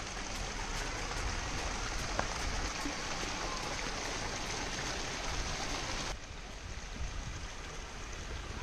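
Water pouring from a stone boar-head fountain spout and splashing steadily into a pond. The splashing drops away to a softer level about six seconds in.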